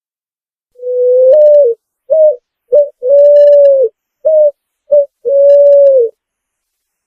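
Picazuro pigeon (pomba asa branca) singing: a phrase of seven low coos, long ones of about a second alternating with short clipped ones.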